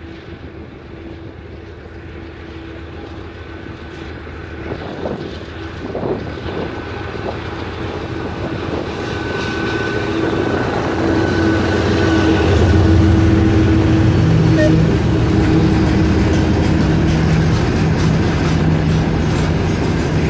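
GE C36-7i diesel-electric locomotive's 16-cylinder engine working under load as it pulls a freight train away, growing louder as it approaches and passes about halfway through, with a steady high tone over its drone. Then the tank cars roll by, their wheels rumbling and clacking over the rail joints.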